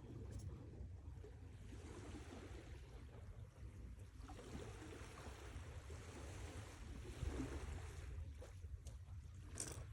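Sea waves washing in and drawing back in slow swells, with a steady low rumble beneath and a short click near the end.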